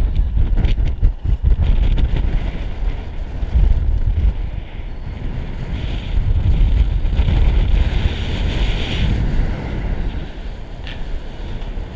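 Strong wind buffeting the microphone in uneven gusts, a heavy low rumble with a fainter hiss above it.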